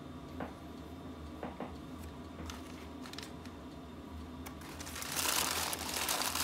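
A paper sandwich wrapper crinkling as it is handled, starting about five seconds in and loudest from then on. Before that, only a few faint ticks over a low steady hum.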